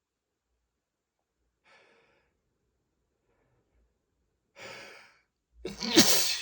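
A person sneezing from dust-triggered allergies. After a long quiet stretch comes a sharp breath in about four and a half seconds in, then a sudden loud sneeze near the end.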